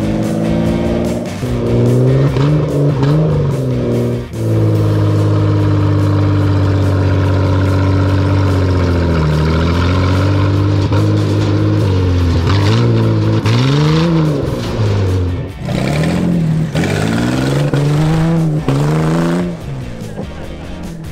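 Toyota 2JZ straight-six engine in a lawn-mower buggy, revving up and dropping back again and again as it accelerates and lets off on a dirt track. About four seconds in it is held steady at high revs for several seconds, and about fifteen seconds in the revs fall away sharply before climbing several more times.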